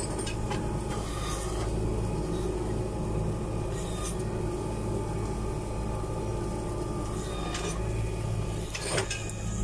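Tractor engine running steadily, heard from inside the cab, with a few brief clicks and knocks about 4, 7 and 9 seconds in. The tractor is backing up a little to free a disc harrow clogged with straw.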